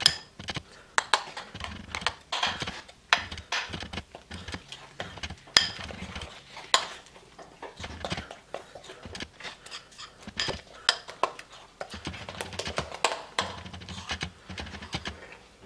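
Metal spoon stirring whey protein powder into Greek yogurt in a ceramic bowl, clinking and scraping against the bowl in quick, irregular strokes.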